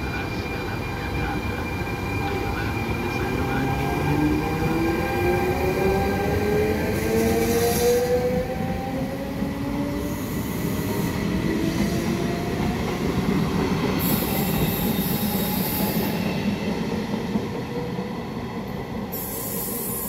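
E464 electric locomotive hauling a regional train of coaches past and away, its traction whine rising in pitch as it gathers speed through the first half, over the steady rumble of wheels on the rails. A few short bursts of high hiss come and go.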